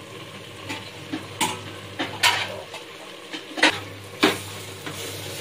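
A flat steel spatula scraping and clinking against a steel kadai in about seven short strokes, over the steady sizzle of onion-tomato masala frying in oil.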